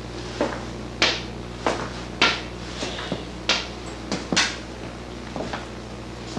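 A series of sharp wooden-sounding knocks, about one every half second at first and then irregular, over a steady low hum.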